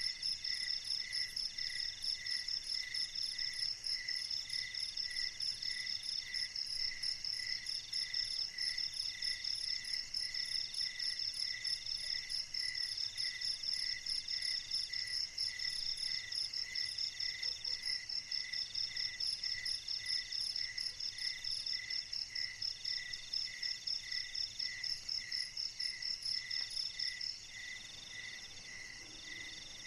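A chorus of night insects, several kinds calling at once at different pitches and rhythms: a fast high trill, a lower chirp about twice a second, and a middle-pitched call in phrases about a second long. The loudest, highest trill cuts off suddenly near the end.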